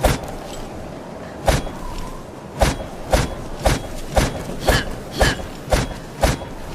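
Short sword strikes: about ten sharp metallic hits, each with a brief ring. They settle into about two a second after the first few.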